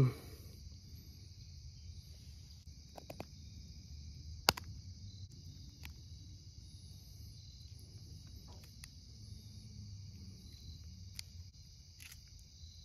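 Steady outdoor insect drone with faint, high bird chirps over it, broken by a few small clicks and one sharp tick about four and a half seconds in, as a flint knife works at a brook trout's gills.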